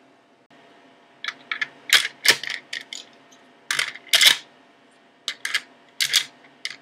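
Plastic clicks and taps of toy Core Medals being picked from a medal case and pushed into the slots of a DX OOO Driver belt buckle: about a dozen short, sharp clicks, irregularly spaced, some in quick pairs.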